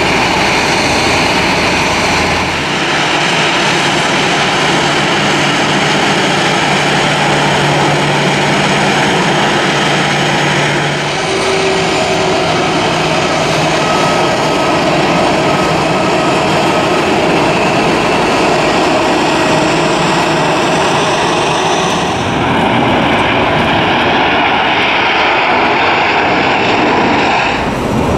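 Jet airliner engines running at high thrust: a loud, steady rushing noise with whining tones, in the main part a Boeing 767-300ER's two turbofans on the takeoff roll. The sound changes abruptly a few times, as one shot cuts to the next.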